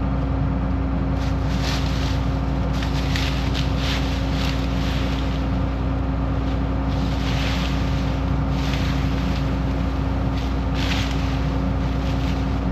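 John Deere combine harvester running steadily while harvesting, a constant low engine hum with a rushing hiss that swells and fades every second or so.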